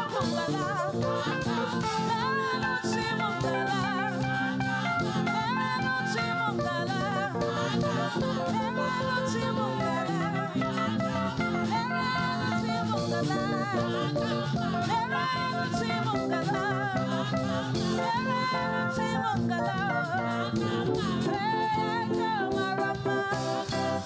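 Church praise music: singing over instrumental band accompaniment with percussion, continuous and steady in loudness.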